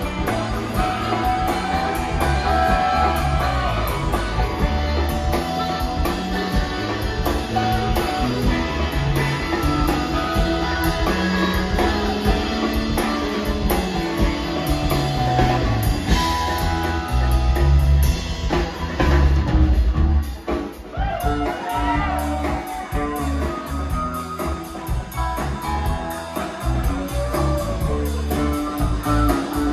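Live rock band playing an instrumental jam, with harmonica played into a microphone over electric guitar, bass guitar, drums and keyboards.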